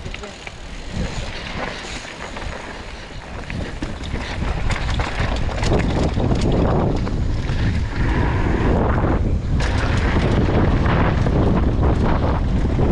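Wind buffeting an action camera's microphone during a mountain bike descent. It grows louder over the first five seconds as the bike picks up speed, then holds steady, with scattered short knocks and clicks from the bike over the ground.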